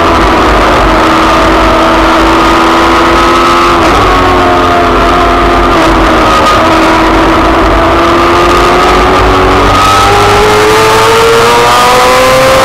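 Racing sidecar engine heard onboard at race speed, its note holding fairly steady through a bend with a brief dip about four seconds in, then rising steadily near the end as the outfit accelerates, with constant rushing wind and road noise.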